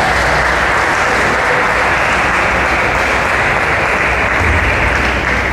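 Spectators applauding, a steady dense clapping.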